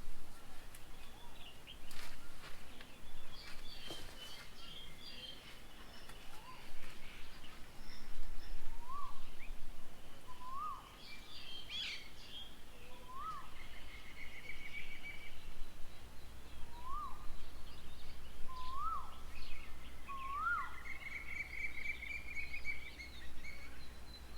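Birds calling: one bird repeats a short rising-and-falling call note every second and a half to two seconds, its notes climbing slightly in pitch. Other birds chirp and trill higher and more faintly around it.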